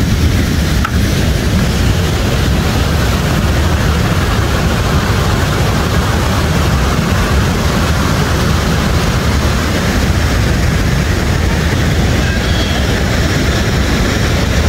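Steady, loud roar of river water pouring over a concrete weir and churning through the rapids below it.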